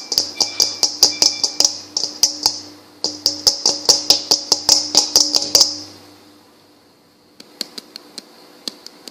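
Kitchen ASMR tapping on a kitchen item, with a faint ringing under the taps. The taps come fast and even, about five a second, pause briefly, stop a little over halfway through, and a few scattered taps follow near the end.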